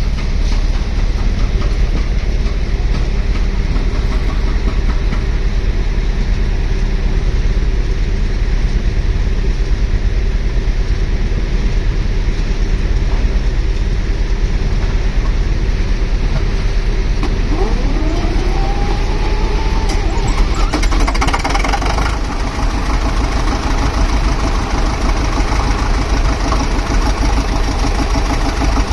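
Compressor's engine running steadily with a low rumble. About eighteen seconds in, a rising whine sweeps up in pitch. A few seconds later the sound turns louder and fuller, with new steady tones, as the compressor starts up.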